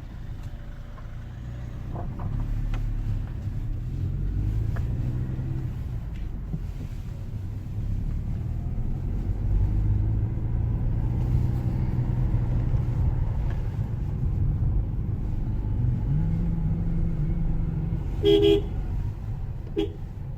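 Ford EcoSport engine and road noise while driving, its pitch shifting as the engine speed changes. A car horn gives a short toot about 18 seconds in, the loudest sound here, and a briefer one near the end.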